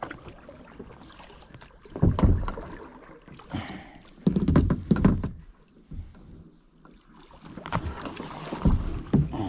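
Bumps, knocks and rustling from handling paddle and gear in a kayak, in three bursts about two, four and a half, and eight seconds in.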